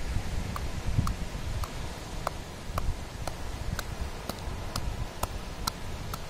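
Pounding spices and shallot in a half coconut shell with a knife's wooden handle used as a pestle: steady sharp knocks, about two a second.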